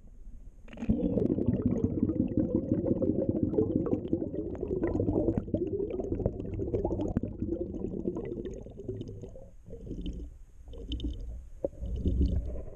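Air bubbling and gurgling in a fish tank, heard with the microphone under water, from the bubbles streaming out of the toy deep-sea diver's helmet and air hose. It starts about a second in and breaks off briefly twice near the end.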